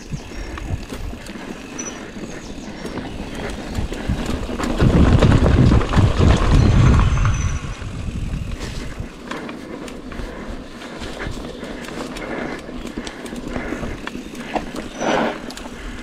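Mountain bike (a Rockrider AM 100S) being ridden over rough ground: tyre noise and the bike rattling, with many small knocks. About five seconds in, a few seconds of heavy low rumble make the loudest part.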